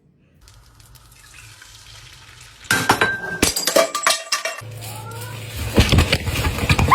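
Kitchenware clattering and clinking, pots and utensils knocking together, starting about three seconds in after a quieter stretch. A low steady hum joins partway through.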